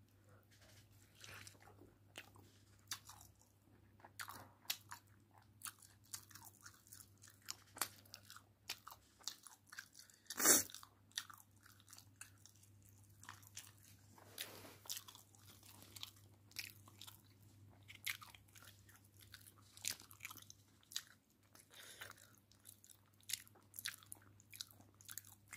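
Faint, irregular wet squelching and clicking of a hand mixing meat pieces into a thick spice marinade in a steel bowl. The sound is loudest about ten seconds in.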